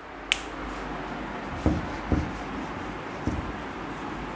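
A duster rubbing marker writing off a whiteboard: a steady scrubbing hiss, with a sharp click just after it starts and a few dull knocks against the board.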